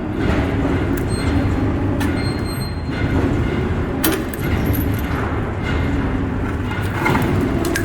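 Steady loud mechanical rumble with scattered sharp metallic clicks and clinks.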